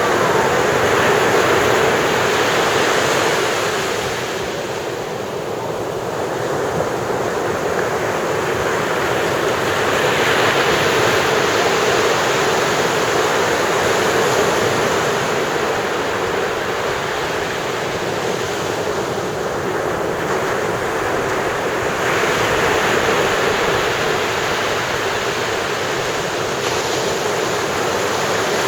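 Ocean surf washing onto a beach: a continuous rush of breaking waves that swells louder and eases off every several seconds.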